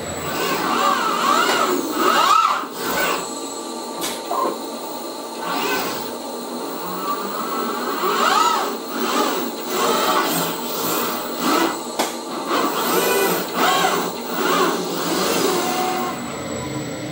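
Industrial robot arm moving through its loading motions: the joint servo drives whine, rising and falling in pitch as each move speeds up and slows down, with sharp clicks now and then.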